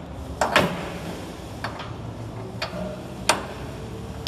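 Sharp metallic clicks and knocks from the parts of a multi-lane liquid packing machine being handled, about five at uneven spacing, the loudest about half a second in, over a steady low hum.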